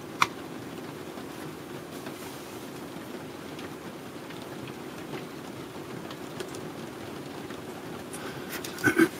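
A single sharp click as a vacuum tube is pushed into its socket on the tester board, then steady background noise, with a few light clicks near the end.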